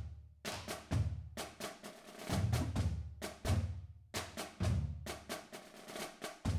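Percussion-led music: quick clusters of sharp clicking strikes over a deep drum beat, repeating steadily.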